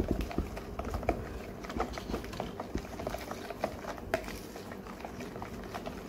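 A runny mixture of water, oil and yogurt with flour being stirred by a gloved hand in a plastic bowl, giving irregular wet clicks and squelches against the plastic.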